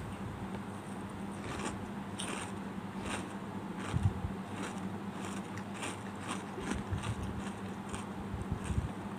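A person chewing a spoonful of chocolate cake, with irregular small wet clicks of the mouth and light scrapes of a metal spoon.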